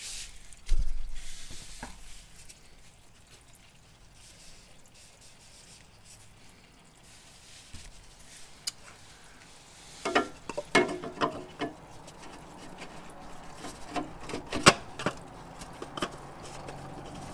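A heavy thump about a second in, then scattered clicks and knocks of hands and tools working on the oil filter housing under a Porsche Boxster.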